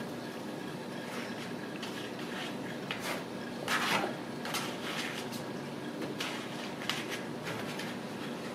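Kittens playing: scattered light taps, clatters and rustles from paws on a round plastic cat toy and a fabric play tent, the loudest a rustle about four seconds in, over a steady low hum.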